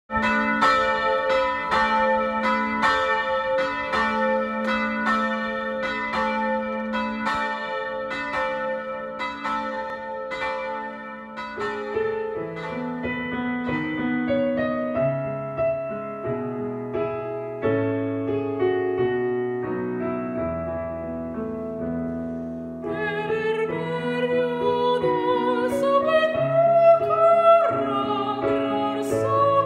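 Church bells ringing in a steady pattern of strikes with long ringing for about the first ten seconds. A digital piano then plays a hymn introduction, and a woman's voice starts singing the hymn over the piano a few seconds before the end.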